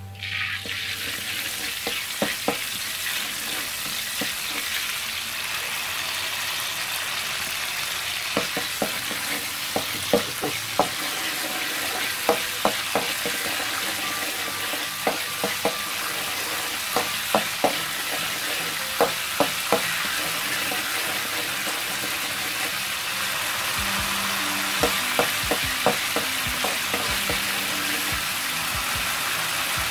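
Minced garlic and oyster sauce frying in oil in a metal wok, a steady sizzle, with a metal spatula scraping and clacking against the pan in short runs of knocks.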